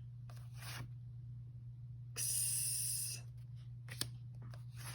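A woman's voice making voiceless phonics letter sounds: a short breathy puff, then about two seconds in a loud hiss lasting about a second, the "ks"-to-"s" sound of the letter X. A steady low hum runs underneath.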